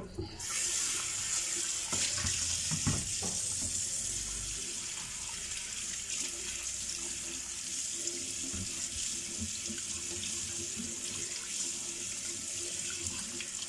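Kitchen tap turned on just after the start, then running steadily into a stainless steel sink as a whole red tilapia is rinsed by hand under the stream, water splashing off the fish and the basin in a steady hiss.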